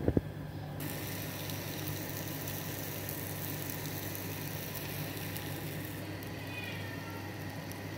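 Oil sizzling steadily in a frying pan, with a sharp knock at the very start.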